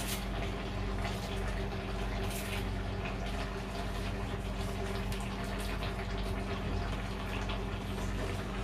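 Crab roast sizzling and bubbling in the pan as its gravy reduces, with scattered small pops over a steady low hum.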